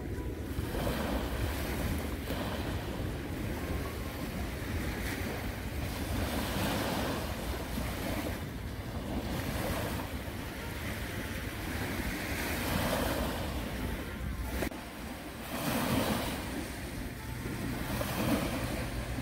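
Small waves breaking and washing up a sandy shore, the surf swelling and fading every few seconds, with wind rumbling on the microphone.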